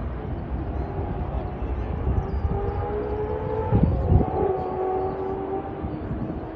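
Supercars V8 race engines at speed out on the circuit, heard from a distance as drawn-out engine notes slowly sliding in pitch over a steady low rumble, swelling loudest about four seconds in.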